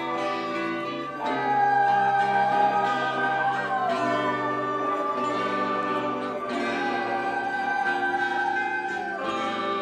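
Live rock band playing, with sustained layered chords and high notes that slide in pitch.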